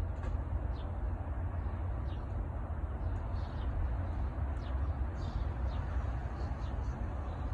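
Steady low outdoor rumble with faint, short, high chirps scattered through it every second or so.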